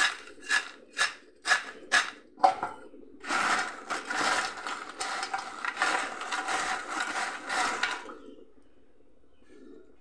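Crisp fried banana chips rattled and tossed in a steel bowl to coat them with seasoning. They come first as about six sharp rattles, two a second, then a continuous dense clatter and rustle of chips being stirred by hand, which stops about two seconds before the end.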